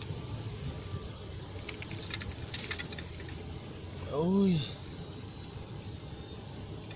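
Insects chirping steadily at a high pitch, loudest about two to three seconds in, then fainter, over a low outdoor rumble.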